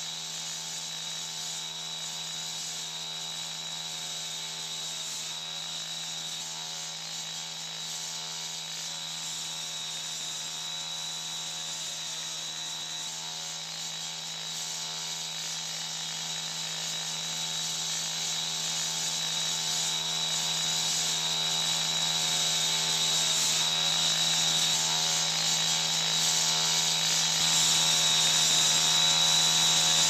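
Handheld cut-off saw (chop saw) running steadily at high speed as its blade cuts through concrete pipe, with a high whine over the engine note. It grows louder over the second half.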